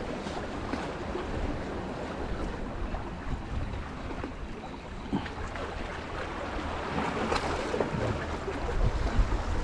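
Seawater sloshing and lapping among concrete breakwater blocks, with wind buffeting the microphone in a low rumble and a few small splashes, a little louder near the end.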